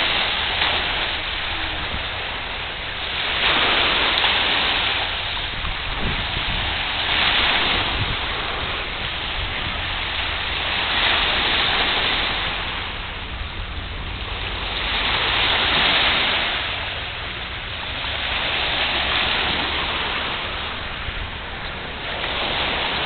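Small lake waves breaking and washing over a pebble beach, swelling and fading about every four seconds.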